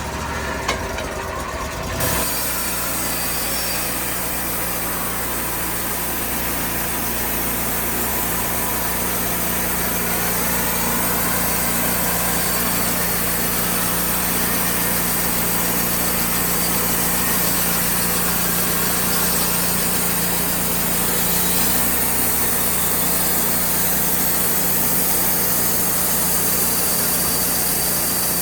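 Portable band sawmill running steadily, its engine droning with a constant hum and a dense hiss over it.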